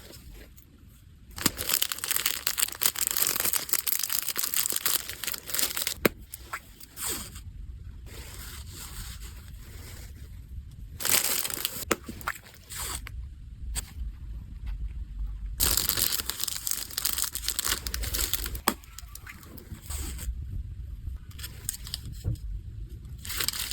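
Packaging being handled by hand: irregular bursts of rustling and crinkling, with occasional sharp clicks and brief pauses between handlings.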